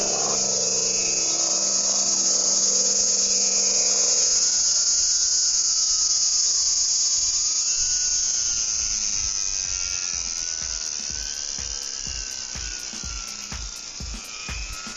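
Electric brushless outrunner motor and propeller of an RC aerobatic plane in flight, a high whine whose pitch wavers up and down as the plane moves and the throttle changes. It grows fainter toward the end, with low gusts of wind on the microphone.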